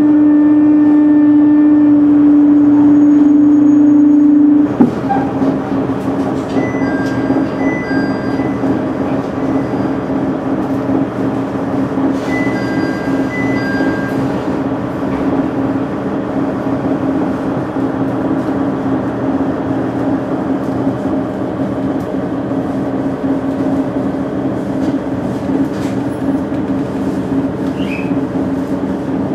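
KiHa 110 series diesel railcar running, heard from inside the passenger cabin. A loud, steady drone cuts off sharply with a click about five seconds in. The car then runs on with quieter, even rumble and a lower drone.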